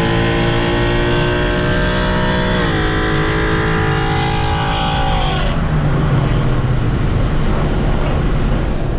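Bolt-on Mustang's engine with long-tube headers pulling hard, heard from inside the car: the revs climb, drop at an upshift about two and a half seconds in and climb again. Around five seconds in the throttle is lifted and the revs fall away, leaving a low engine rumble and road noise.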